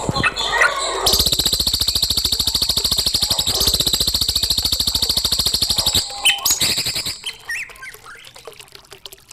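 Songbird singing a rapid, even, high trill that runs for about five seconds, then breaks into a few short chirps and notes that fade out.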